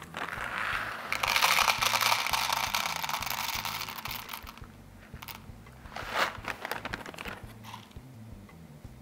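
Foil-lined coffee bag crinkling as it is handled and whole coffee beans poured from it, rattling into a plastic deli container on a scale for about four seconds. A few light knocks follow, the clearest about six seconds in.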